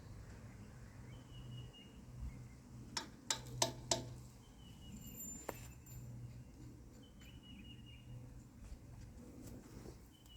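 A bird calling over and over, one short high note with a slight downward tail about every two seconds, over a steady low hum. A few sharp clicks come about three to four seconds in, and one more shortly after.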